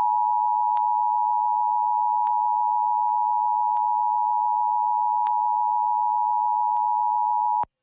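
Emergency Alert System attention signal: the steady two-tone alarm of 853 Hz and 960 Hz sounded together, marking the start of an EAS message, here a required monthly test. It cuts off abruptly near the end.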